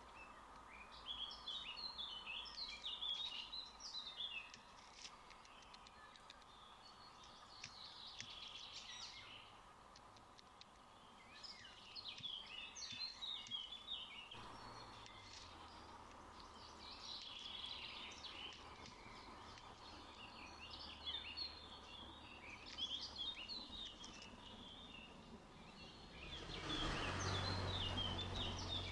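Birds chirping and chattering in repeated bursts of quick, high calls over a faint steady background hum. Near the end a broad rushing noise swells up and is the loudest sound.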